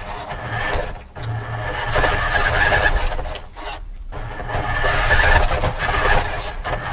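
Radio-controlled car driving, heard from a camera mounted on it: a high motor whine over rolling and scraping noise from the wheels. The sound drops out briefly about a second in and again around four seconds, then picks up again as the throttle comes back.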